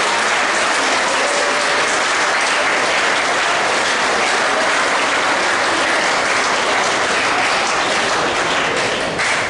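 A large audience of students applauding, a dense steady clapping that eases slightly near the end.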